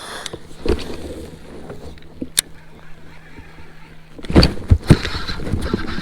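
Knocks and handling noises aboard a fishing kayak on the water. There is a sharp click about two seconds in, over a faint steady low hum that stops about four seconds in. Then come several louder knocks and a rough wash of noise.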